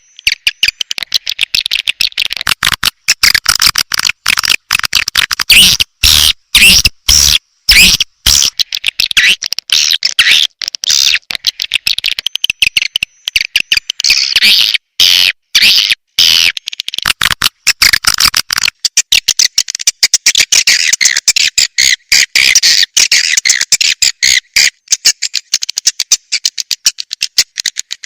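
Swiftlet lure call: loud, dense twittering and chirping of edible-nest swiftlets, the recording played from a swiftlet house to draw birds in to nest. The chirping is broken by many sudden short gaps.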